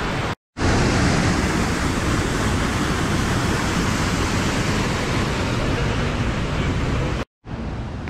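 Small woodland waterfall pouring over rocks into a pool: a steady, loud rush of water. It breaks off into silence twice, just after the start and near the end.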